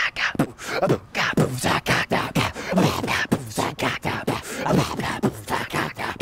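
A man's voice making rapid wordless vocal noises in quick succession, each one falling in pitch, with no real words.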